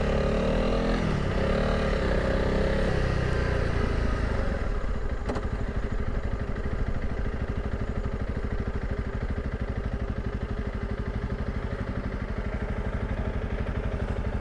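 Honda CRF300 Rally's single-cylinder four-stroke engine under way at low speed, its pitch rising and falling over the first few seconds, then settling into a steady, even beat.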